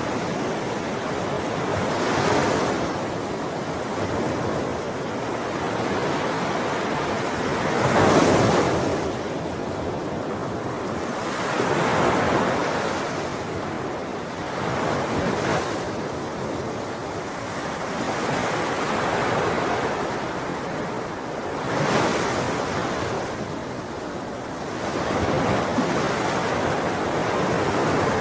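Sea waves breaking and washing on the shore, a continuous rush of surf that swells with each wave every few seconds. The loudest break comes about a third of the way in.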